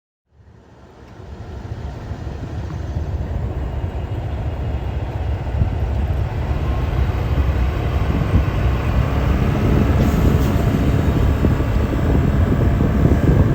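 A diesel train running close by, a dense steady rumble that builds over the first couple of seconds and then holds loud.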